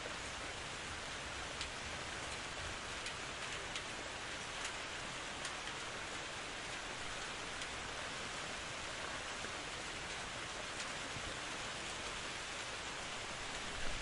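Steady rain falling, an even hiss with scattered louder drop ticks and a brief louder patter near the end.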